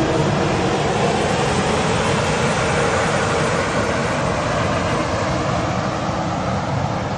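Embraer 190 jet airliner during landing or taxi: a steady rush of noise over a low rumble that eases slightly near the end.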